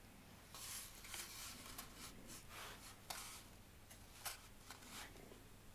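Faint rustling swishes and a couple of light clicks, about three and four seconds in, as an MP-155 shotgun is turned over in the hands.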